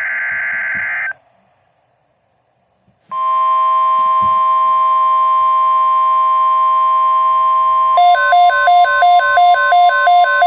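NOAA Weather Radio alert: the screeching tail of a SAME digital header burst stops about a second in. After about two seconds of silence, the steady 1050 Hz warning alarm tone comes on. About five seconds later a weather radio receiver's own alarm starts beeping over it in a fast repeating pulse, two to three beeps a second, signalling a tornado watch.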